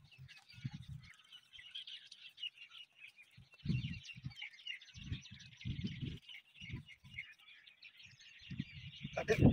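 A chorus of small birds chirping and twittering continuously in a rural field, with irregular short low rumbles and a louder low sound just before the end.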